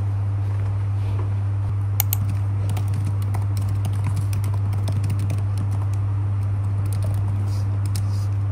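Typing on a MacBook laptop keyboard: light key clicks, starting about two seconds in, over a steady low hum.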